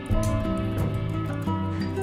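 Background music: an instrumental with sustained pitched notes that change every half second or so.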